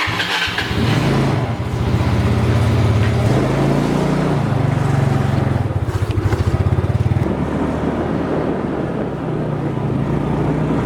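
Motor scooter engine running as it is ridden along, its note rising and swelling a few seconds in, then settling back to a steady run.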